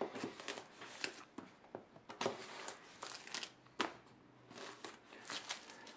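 Clear plastic shrink-wrap on a cardboard box being cut and pulled away: irregular crinkling and scratching with a few sharp clicks.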